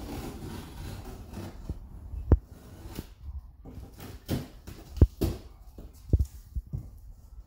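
Large cardboard shipping boxes being handled: a scraping rustle at first, then a few sharp knocks and thuds on the cardboard.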